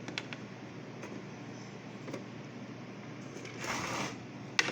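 Light handling noises: a few small clicks, a brief rustle about three and a half seconds in, and a sharp click near the end, over a steady low hum.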